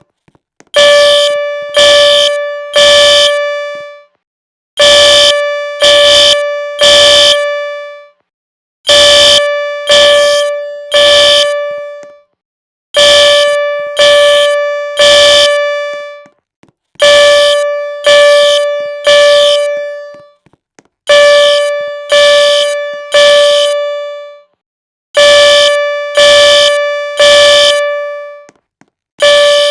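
Fire alarm horn sounding the temporal-three evacuation pattern: three pitched beeps about a second long each, then a pause, repeating about every four seconds, being tested.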